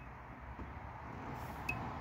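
Faint handling noise with a sharp metallic tick and a brief high ping about one and a half seconds in, from wiring-harness connectors being worked by hand.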